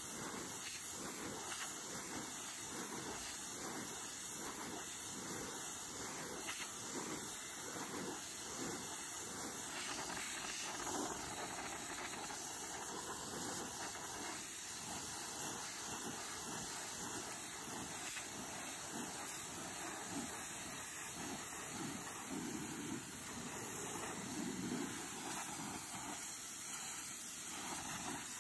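Pressure washer jet spraying with a steady hiss against the base of a painted wooden picket fence, the tone shifting slightly as the wand moves along.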